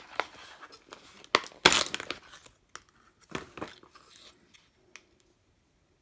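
Plastic insulating wrap being peeled off a power supply circuit board: crinkling, tearing rustles in uneven bursts, the loudest about two seconds in, with smaller rustles and light clicks after.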